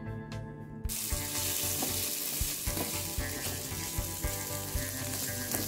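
Diced pork sizzling as it fries in a non-stick pan and is stirred with a spatula. The sizzle starts suddenly about a second in.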